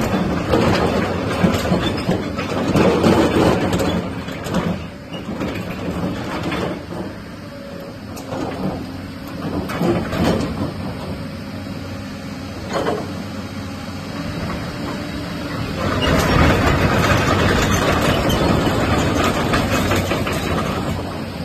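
Hyundai 225LC-9T hydraulic excavator's diesel engine running. Its level rises and falls several times and is loudest for about the last five seconds.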